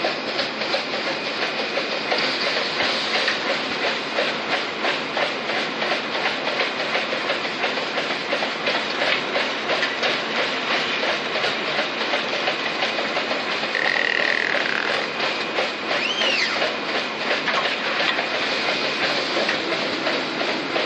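Automatic disposable-cup counting and packing line running: a steady, dense mechanical clatter of rapid ticks. A brief high squeak cuts through about three quarters of the way in.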